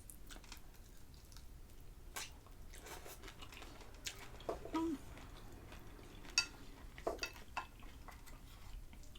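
Close-up chewing of a bite of fried egg: soft, irregular mouth clicks and smacks, with a light clink of a utensil on a dish about six seconds in.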